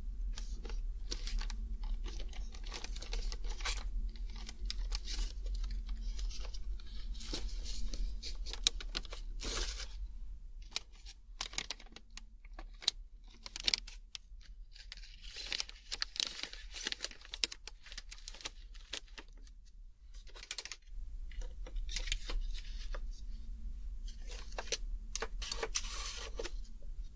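Close-miked crinkling and rustling of plastic snack packaging, full of small sharp crackles and taps, with a brief pause about twenty seconds in. A faint steady low hum lies underneath.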